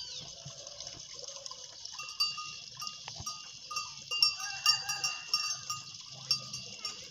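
Farmyard animal sounds among cattle: a steady high chirring with short chirps repeating throughout, and a brief wavering call about four and a half seconds in.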